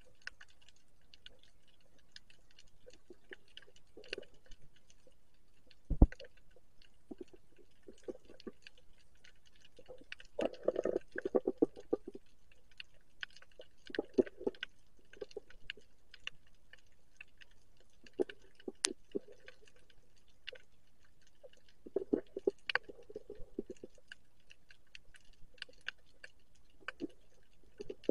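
Underwater clicking and crackling picked up by a submerged camera: a steady scatter of irregular sharp clicks, with louder patches of crackle about ten to twelve seconds in, near fourteen seconds and again around twenty-two seconds. One sharp knock about six seconds in stands out as the loudest sound.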